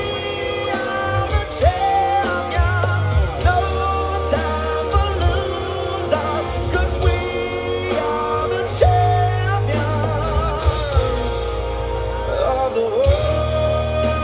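Live rock band playing through a PA, with electric guitars, bass and drums under a sung lead vocal.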